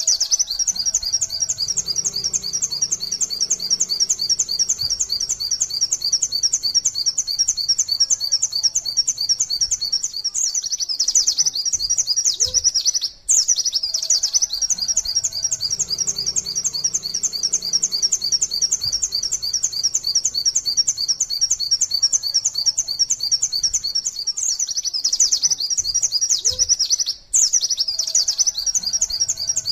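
White-eye (pleci) singing in the fast 'nembak' style: a long unbroken run of rapid, high chirping notes. It breaks off for a split second about 13 seconds in and again near the end.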